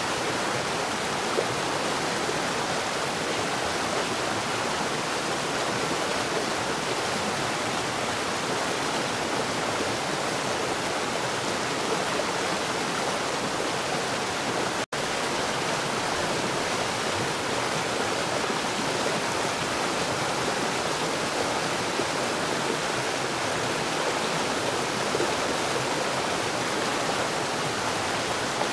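Steady, dense rain noise without a break in its texture, with a split-second gap of silence about halfway through. No thunder is heard.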